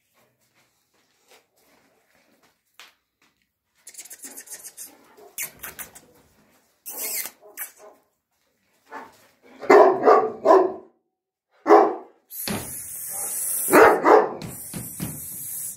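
A dog barking: a quick run of loud barks about ten seconds in, another soon after, and more near the end over a steady hiss. Scuffling and scraping sounds come before the barking.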